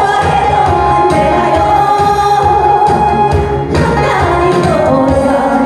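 A woman singing a Korean song through a microphone and PA speaker over recorded backing music, holding one long note before a short break about three and a half seconds in, then singing on.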